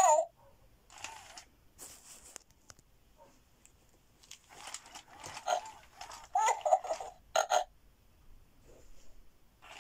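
FurReal Friends Koala Luv Cub interactive toy playing its electronic koala noises through its small speaker: a series of short animal-like calls, loudest at the very start and again around six to seven and a half seconds in.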